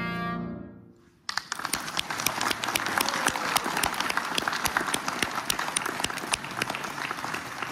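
The final held note of a clarinet and piano piece fades away. After a brief silence just over a second in, an audience starts applauding and keeps clapping.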